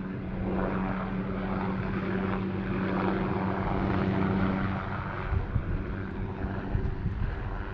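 A steady, even-pitched engine drone from an aircraft passing overhead, fading out about five seconds in, over a low rumble.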